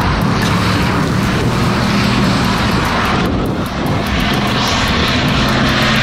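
Semi truck's diesel engine running under load as the rig works its way out of deep snow, with wind hissing over the microphone.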